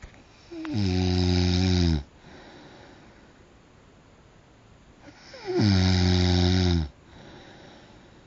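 A sleeping person snoring loudly: two long, low, buzzing snores about four and a half seconds apart, each starting with a slight drop in pitch.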